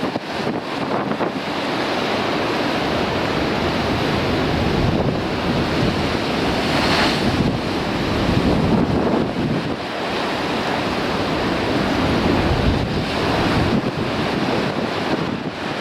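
Ocean surf breaking against rocky shore in strong wind, with wind buffeting the microphone. About seven seconds in, one wave breaks with a hissing splash of spray.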